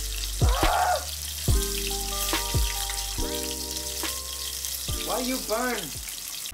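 Battered perch pieces deep-frying in a wok of hot oil, a steady sizzling hiss, under background music with a beat, held notes and a short voiced phrase about five seconds in.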